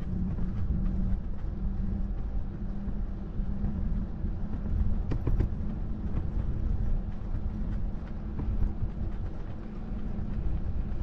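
Steady low rumble of a bicycle riding along a road: wind on the handlebar-mounted microphone and tyres on the tarmac, with a few light clicks or rattles about five seconds in.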